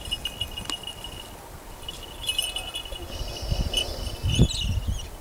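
Small falconry bells on a flying hawk jingling with a thin, high ring that comes and goes, with a few low thumps near the end.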